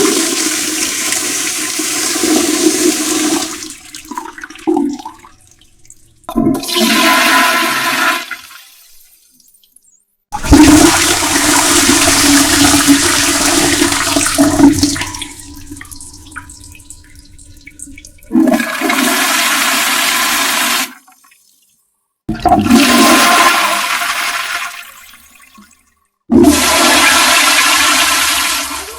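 A string of separate toilet flushes, about six of them, one after another. Each is a rush of water lasting a few seconds, and some end abruptly.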